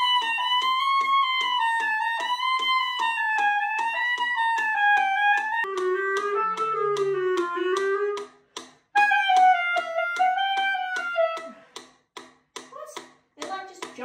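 Clarinet playing a chromatic scale study in quick runs that weave up and down, dropping to a lower register midway. A metronome clicks steadily at 152 beats per minute underneath. The playing breaks off briefly just after 8 seconds and stops for good about 11 seconds in.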